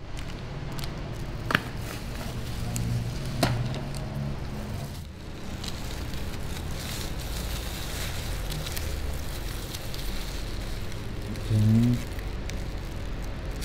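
Chocolate bar wrappers crinkling and rustling as gloved hands handle and start to open them, over a steady low hum, with two sharp clicks early on and a brief loud pitched sound near the end.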